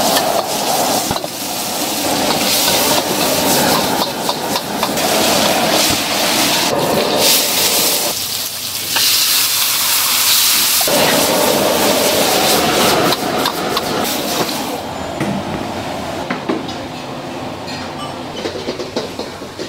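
Food sizzling and hissing loudly in a wok over a high flame, with a metal ladle clanking and scraping against the wok. From about eight to eleven seconds in, a sharp steam hiss takes over as liquid hits the hot wok. It dies down after about fifteen seconds.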